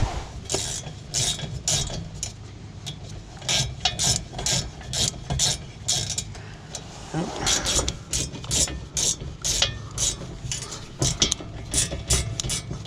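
Ratchet wrench clicking in quick strokes as a bolt on the brake caliper is turned back and forth; the bolt is not catching its thread.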